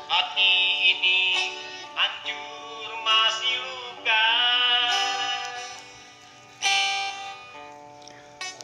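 Music: a voice singing long held notes that bend in pitch, over a plucked-string accompaniment.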